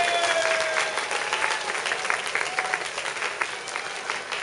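Crowd applauding, a dense patter of many hands clapping that eases off slightly. In the first second a held tone, the tail of the dance music, fades out under the clapping.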